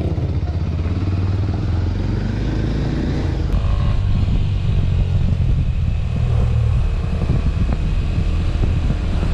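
Single-cylinder Kawasaki Ninja 250 SL motorcycle engine running while riding, with wind noise on the camera mic. About three and a half seconds in, the sound jumps to faster riding on a wet road, with more wind and road noise.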